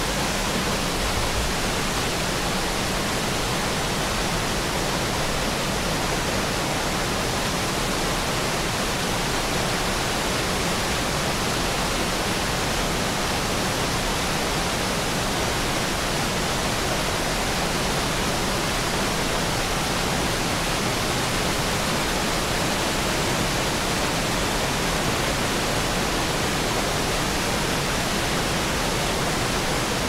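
Jacob Fork creek cascading over boulders in small waterfalls: a steady, unbroken rush of water.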